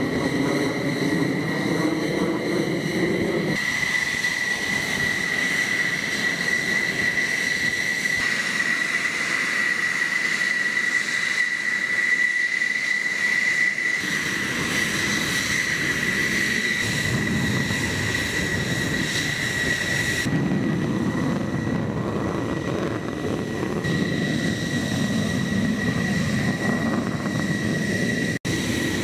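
F-16 fighter jet's turbofan engine idling, a steady high-pitched whine over a rushing roar. The sound cuts out for an instant near the end.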